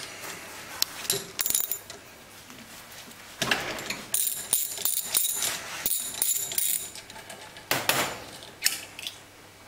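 Hand tools and small steel parts of a Bosch common rail injector clicking and clinking against the clamping stand during disassembly, with irregular sharp clicks and two short runs of bright metallic jingling in the middle.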